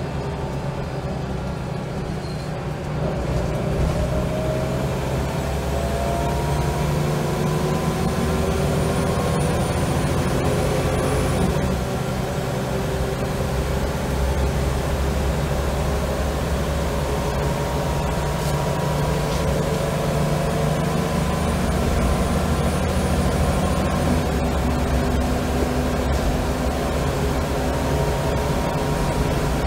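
Scania L94UB bus with a ZF automatic gearbox, heard from inside the saloon, pulling hard: the engine and gearbox whine climbs steadily in pitch, drops with an upshift about twelve seconds in, then climbs again, over a steady low rumble.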